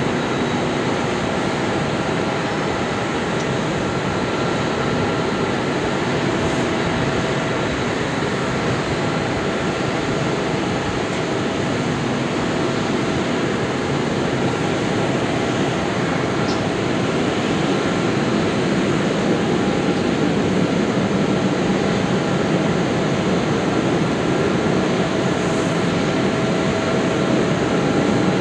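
Jet engines of a four-engined Boeing 747-400D running at taxi power as it taxis: a steady rush of jet noise with several steady whining tones, growing slightly louder near the end.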